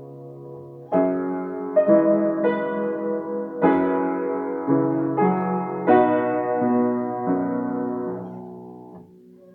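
Piano playing the closing bars of a slow piece: a string of chords, each struck and left ringing, with the last one dying away near the end.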